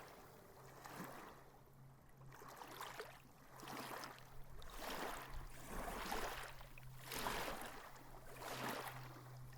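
Water lapping in gentle, repeated swells, about one wash a second, over a faint steady low hum.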